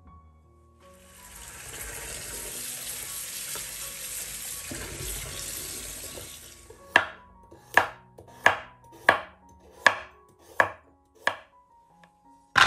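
Tap water running into a plastic bowl in a sink as a carrot is rinsed by hand, stopping after about six seconds. Then a kitchen knife slices a carrot on a wooden cutting board: seven even chops about two-thirds of a second apart, followed by a louder knock at the very end.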